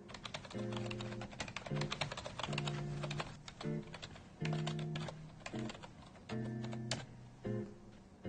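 Typing on a computer keyboard: a quick, dense run of keystroke clicks for about the first three seconds, then shorter bursts of keystrokes.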